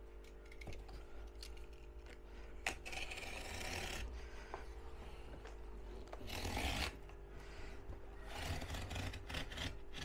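Cardboard being cut into strips, a few long scraping strokes of the cut through the board.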